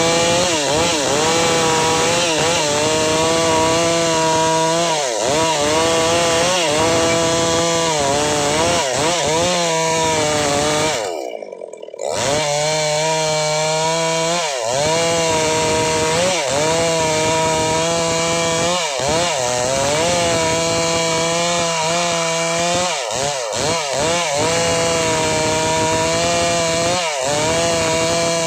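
Stihl MS 382 two-stroke chainsaw running at high revs while ripping gmelina (white teak) wood lengthwise, its pitch dipping over and over as the chain bogs under load. The sound drops out briefly about eleven seconds in.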